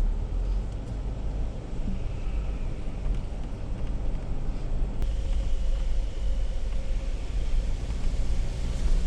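A vehicle driving along: a steady low rumble.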